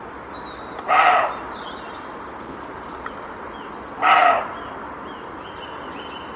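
A roe deer buck barking: two short barks about three seconds apart, an alarm call warning off an intruder it has sensed in its territory.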